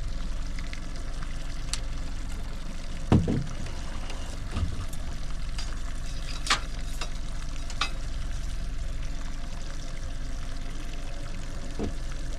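Steady splashing hiss of water moving past a slow-trolling fishing boat over a low steady rumble. A dull knock comes about three seconds in, and a few light clicks follow from handling gear on the boat.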